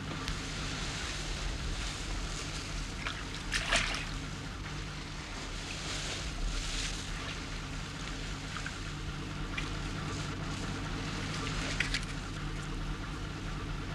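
Sea water lapping and sloshing around boats, with a few brief splashes and a steady low hum underneath.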